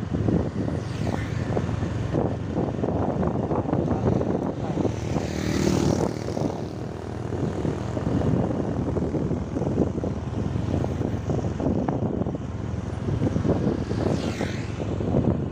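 Motorcycle engine running at road speed from the rider's own bike, with wind buffeting the microphone. Other scooters pass close by, most clearly around the middle and near the end.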